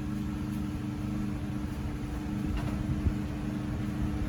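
Electric fan humming as it runs on power from a small biogas-fuelled generator, with the generator's engine running steadily underneath. The fan's hum builds slightly toward the end as it speeds up on the generator's power.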